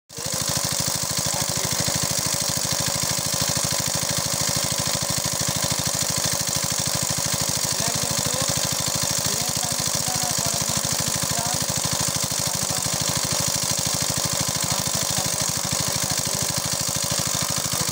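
Small engine, likely the pump engine for the pipe at the water's edge, running steadily with a fast, even beat.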